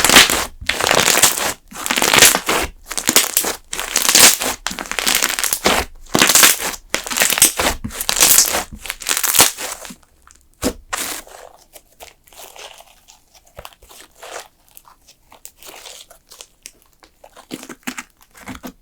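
Thick slime being squeezed and worked by hand, giving a quick run of loud crackling, crinkling squishes. About ten seconds in the sounds turn much softer and sparser.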